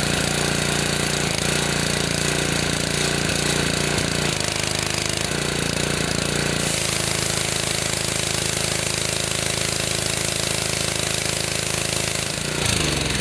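Petrol-engine pressure washer with a CAT pump running steadily and smoothly, warmed up after a sticky start from storage. About halfway through its note shifts and a hiss rises. Near the end the engine is shut off and its note falls away as it spins down.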